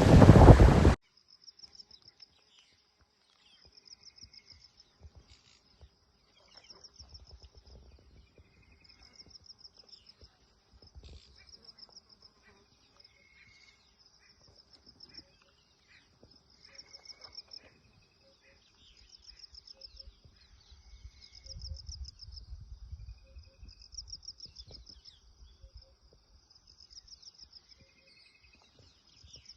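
An insect, cricket-like, trilling in short high pulsed bursts every second or two, with a few short bird chirps and patches of faint low wind rumble. It opens with about a second of loud wind on the microphone that cuts off suddenly.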